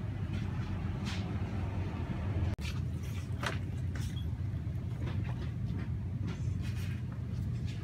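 Steady low hum of a grocery store's background noise, with scattered soft clicks and rustles. The sound cuts out for an instant about two and a half seconds in.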